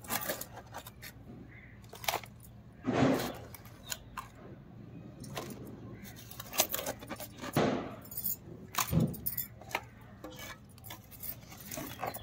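Hand digging tool scraping and digging old soil out of a cement flowerpot around a jasmine plant, in irregular scrapes with metallic clinks, a few louder ones.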